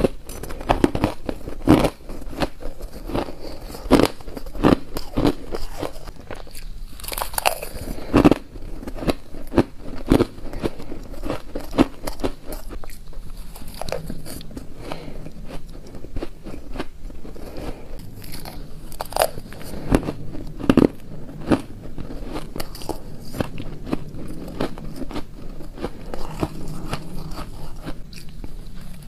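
Close-up crunching and chewing of shaved ice taken by the spoonful, with many irregular sharp crunches throughout.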